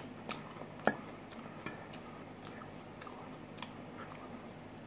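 Quiet chewing of a mouthful of pasta, with a few sharp clicks of a metal fork against a stainless steel bowl as it scoops up tortellini, three in the first two seconds and one more later.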